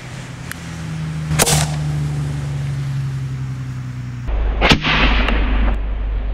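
Homemade soup-can combustion tennis ball cannon firing: a sharp crack about a second and a half in, then the loudest bang about two-thirds of the way through, trailing off in a brief echo.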